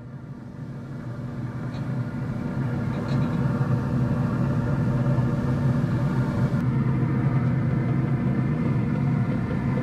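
A steady, low mechanical hum with a clear pitch. It grows louder over the first couple of seconds and then holds level. Two faint light clicks sound early on, as the skewers go onto the grill grate.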